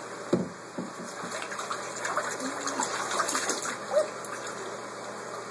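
Bathwater splashing and sloshing in a foam-filled bathtub as a hand sweeps through it, with a couple of sharper splashes in the first second and small irregular swishes after.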